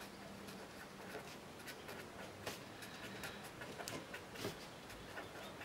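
A pen writing on paper: faint, irregular scratches and light taps of short strokes as block letters are printed.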